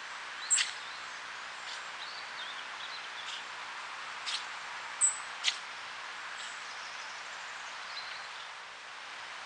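A fox sneezing several times in short, sharp bursts, the loudest about half a second in and about five seconds in, over a steady hiss.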